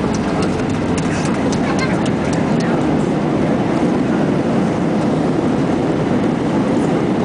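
Jet airliner cabin during landing: a loud, steady rumble of engines and runway, with rattling clicks from the cabin fittings in the first few seconds.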